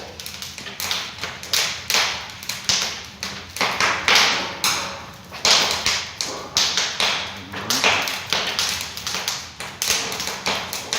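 Irregular series of sharp taps and knocks, about two to three a second, each with a short ring-out.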